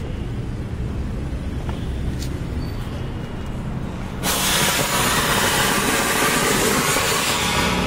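Anar (flowerpot fountain firework) erupting: after a low background rumble, a sudden loud, steady rushing hiss of spraying sparks starts about four seconds in.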